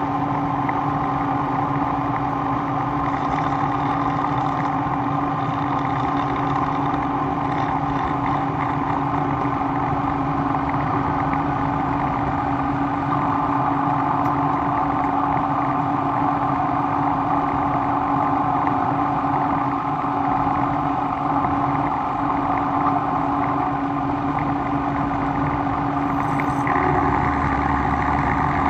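A machine running steadily with a constant hum and no separate blows.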